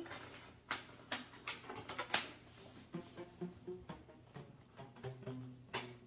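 Quiet scattered clicks and rustles of a cardboard shoebox being handled and opened.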